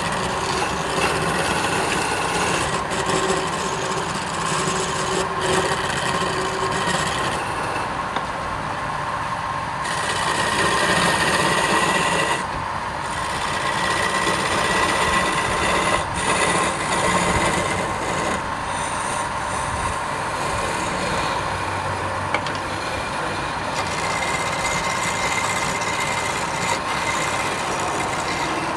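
Wood lathe running, with a tool scraping against the spinning wood and a steady hum under it. The cutting noise changes every few seconds as the tool's contact shifts.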